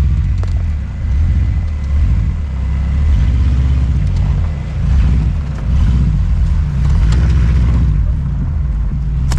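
Engine of a 4x4 crawling slowly over a rocky trail, a low rumble that swells and eases with the throttle, with a few light knocks.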